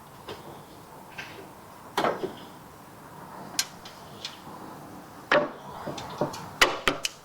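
Screwdriver and screws working at a bench-top band saw's blade cover: scattered clicks and knocks, with a quick run of small metallic clinks near the end.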